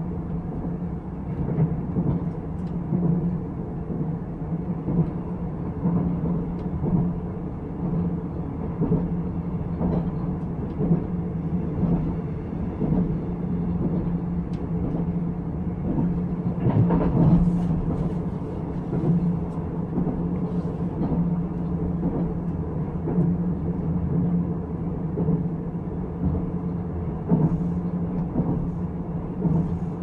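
Running noise inside a moving Nuriro passenger train carriage: a steady low rumble with repeated small clicks from the wheels on the rails, and a louder clatter about seventeen seconds in.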